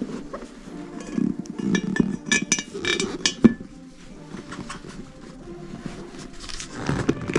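Metal parts and tools clinking, with a cluster of sharp ringing strikes between about one and three and a half seconds in, over background music.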